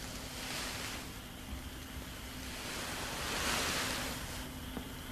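Soft, wind-like rushing ambience that swells about three and a half seconds in and eases off again, over a faint low steady hum.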